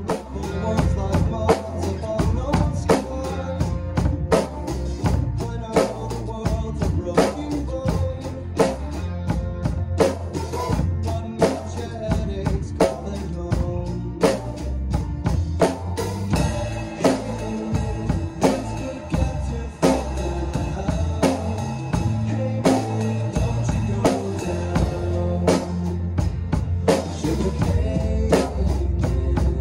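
Pearl drum kit played along with a recorded song that has singing and guitar, the drums keeping a steady beat of kick, snare and cymbal hits.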